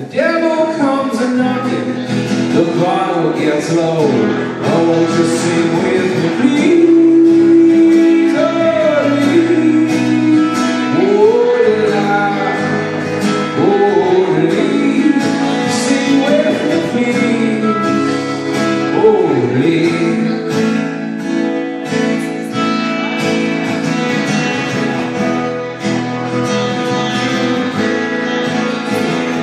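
Live acoustic folk song: a strummed acoustic guitar with a sung melody over it.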